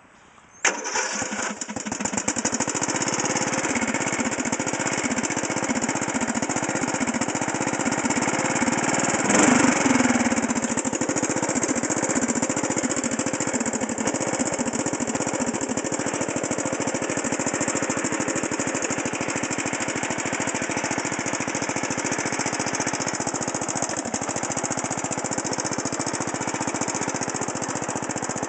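Craftsman riding lawn mower engine running loud and unmuffled on a cold start, through a muffler with a big hole in it. It comes in suddenly about half a second in and runs steadily, with one brief rev about nine seconds in that falls back.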